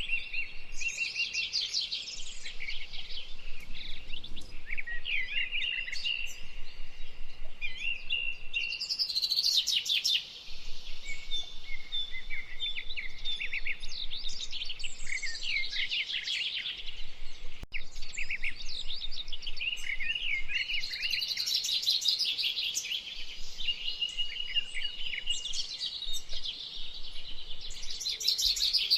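Songbird singing almost without pause: a varied stream of quick high chirps, short held whistles and rapid trills.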